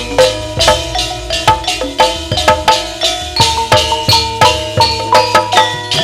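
Music of struck, ringing mallet percussion playing a quick, even run of notes, several strikes a second, over steady drum beats.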